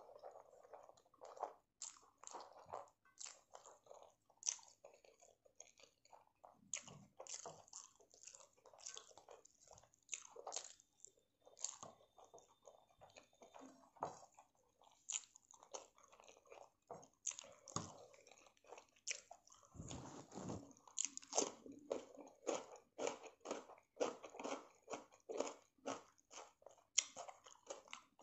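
A person chewing a mouthful of prawn rice eaten by hand, close to the microphone: an irregular run of short mouth clicks and smacks.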